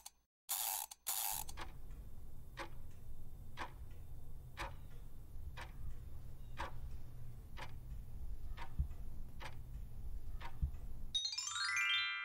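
Quiz countdown sound effect: a clock ticking about once a second over a steady low hum, opening with three short swooshes as the answers appear. It ends with a rising chime that rings on as the answer is revealed.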